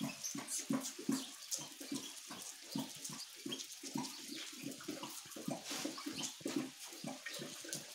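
A large dog, a Spanish mastiff, lapping and drinking water from a bucket: quick wet splashing laps, several a second, running on without a break.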